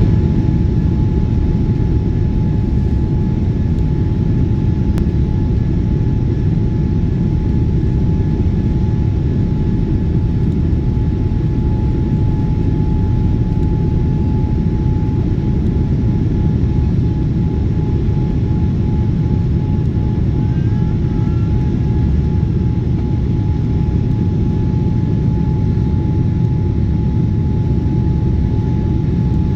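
Steady, unchanging roar of a jet airliner in flight, heard from inside the cabin, with a thin steady hum-tone above the rumble.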